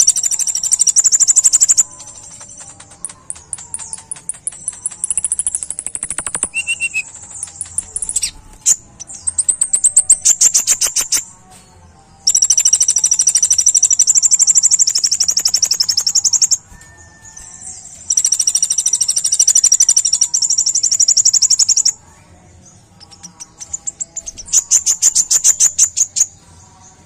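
Kolibri ninja sunbird singing a high-pitched song: runs of fast clicking notes that speed up, alternating with long, shrill trilled phrases of a few seconds each.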